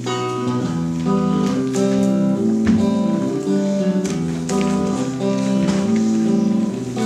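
Guitar playing a slow run of sustained plucked chords and notes, changing about every second.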